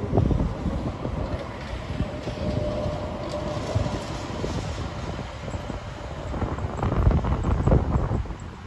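Sheffield Supertram tram pulling away from the platform and running off along the rails, with a faint steady whine in the first few seconds. Wind buffets the microphone in gusts.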